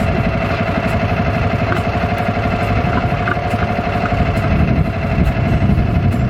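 An engine running steadily, with an even hum and a low rumble.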